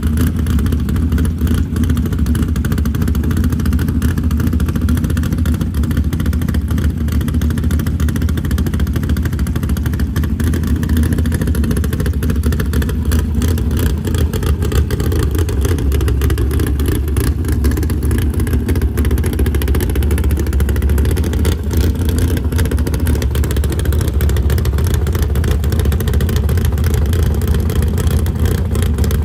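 Small-block Chevy V8 in a 1987 GMC Jimmy drag truck running at a loud, steady idle.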